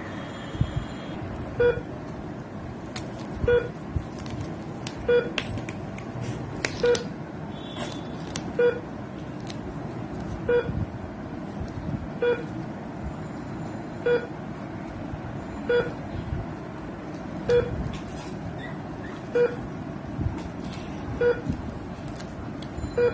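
Short electronic beep repeating evenly, about once every two seconds, one steady low tone each time, over faint rustling and handling clicks.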